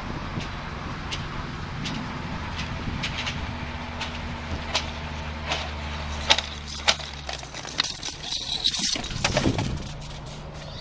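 Steady low engine hum with scattered sharp clicks. The hum cuts out about seven and a half seconds in, followed by a louder flurry of knocks and rustling.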